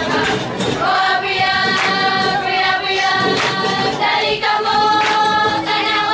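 A choir of young girls' voices singing together, with a sharp stroke about every second and a half.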